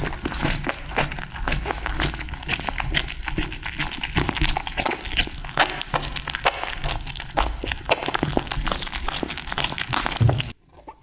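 Close-up crunching and crackling of a cat chewing fish, a dense run of rapid wet clicks, cutting off abruptly near the end.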